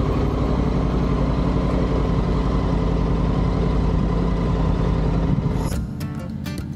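Triumph Tiger 900 GT Pro's three-cylinder engine running at a steady, even pitch while the bike rides along. About six seconds in it cuts to strummed acoustic guitar music.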